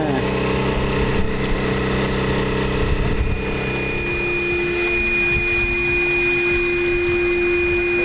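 Outboard motor running steadily. About three seconds in the sound changes to a steady, even whine.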